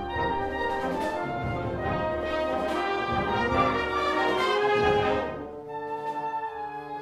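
Wind band playing a full, brass-led passage with held chords; about five seconds in it drops back to a softer, thinner passage.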